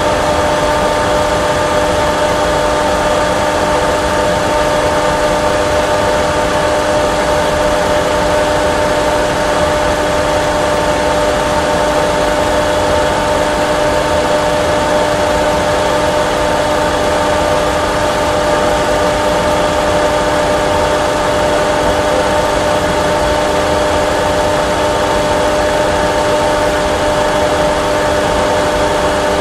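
Steady cockpit noise of a Boeing 737 Classic full flight simulator: simulated engine and airflow noise, an even rush with a steady hum of several tones, unchanging throughout.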